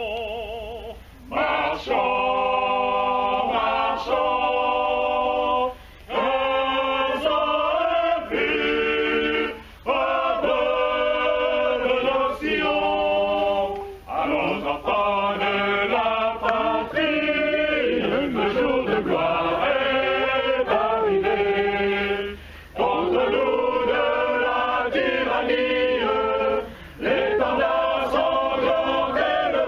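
Choir singing, with men's voices strongest, in phrases a few seconds long separated by short pauses.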